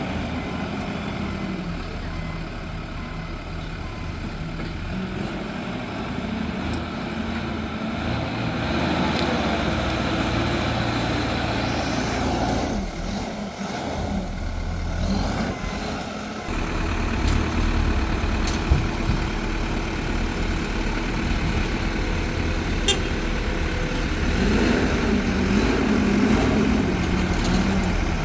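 Diesel engines of heavy earthmoving machinery running steadily under work. The engine sound changes abruptly twice around the middle, and there are two short sharp clanks later on.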